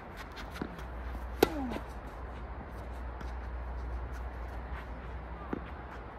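Tennis ball impacts: one sharp pop about a second and a half in, with fainter knocks before it and one near the end, over a steady low rumble.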